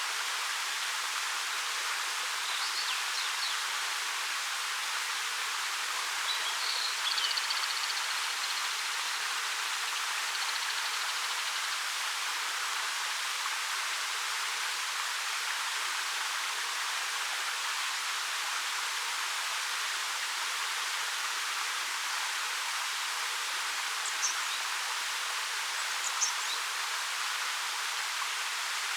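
A 13 m waterfall running with a steady, even rush of falling water. A few short bird chirps cut through about three and seven seconds in, and two brief high calls come near the end.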